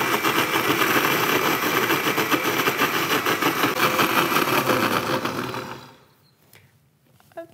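Countertop blender running at speed, puréeing steamed broccoli with a little cooking water into a smooth paste; the motor winds down and stops about six seconds in.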